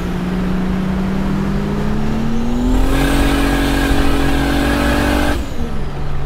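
Single-turbo 2JZ-GTE straight-six pulling hard under full acceleration, its engine note rising steadily after a gear change. It grows louder and harsher about three seconds in, then drops away suddenly a little after five seconds as the throttle comes off for the next shift.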